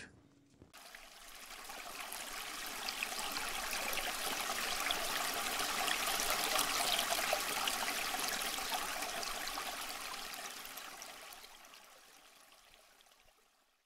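Rushing, splashing water sound effect that swells in over a couple of seconds, peaks in the middle and fades away near the end.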